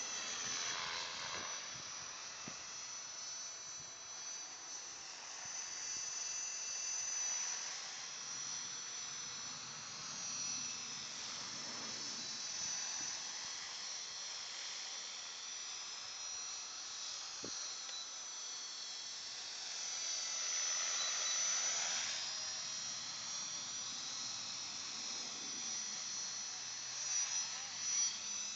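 High-pitched whine of a small radio-controlled model aircraft's electric motor as it flies around. The pitch swoops as it passes closer, about a second in and again around twenty seconds in. Two brief louder sounds come near the end.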